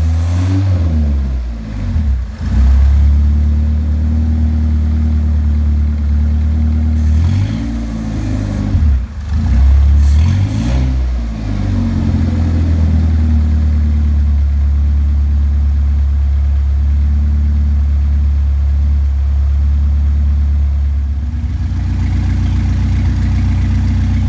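Saturn car engine running on a lawnmower carburetor, blipped by hand at the throttle so that it revs up and drops back several times, then settles into a steady idle for the second half. The throttle response is sharp and the engine is not running lean.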